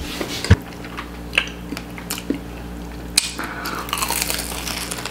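Close-up mouth sounds of a person biting into a fried samosa: a few short clicks, then a longer crackling crunch of the pastry about three seconds in, followed by chewing.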